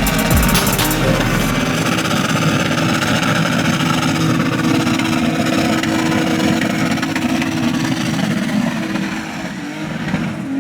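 A car engine running hard at steady revs, easing off slightly near the end.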